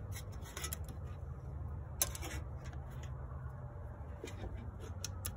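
Scattered clicks and scrapes of hands working a jumper wire around the battery and engine bay, with one sharper click about two seconds in, over a low steady hum.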